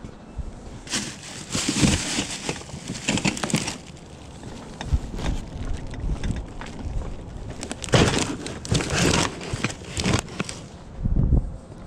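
Rustling and crinkling of belongings being handled while a box is rummaged through, in two longer stretches with a few light knocks between.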